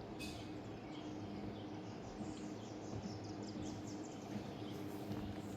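Quiet steady background hum, with faint high bird chirps in the middle.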